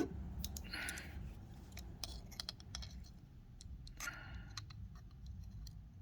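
Faint clicks and two short scrapes as a vintage half-inch-drive, 12-point steel socket is handled and turned over in the hands.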